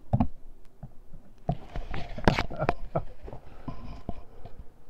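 Cloth face mask being pulled from a cardboard box and unfolded by hand: scattered rustles and light taps of fabric and cardboard being handled.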